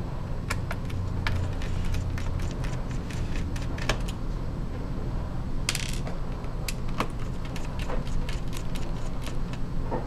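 Small screwdriver working the screws out of a laptop's logic board: scattered light metallic clicks and ticks, with a brief scrape about six seconds in, over a steady low hum.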